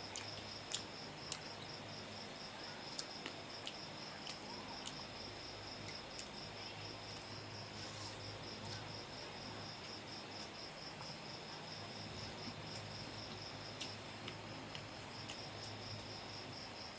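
Cricket chirping steadily, a high, even pulsing trill, with occasional sharp clicks over it.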